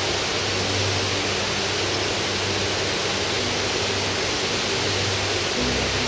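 Heavy water rushing out under a dam's roller spillway gates into churning whitewater: a steady, even rush.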